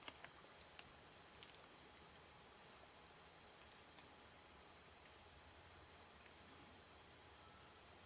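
Chorus of rainforest night insects: a steady high-pitched ringing, with a shorter high pulse repeating about once a second.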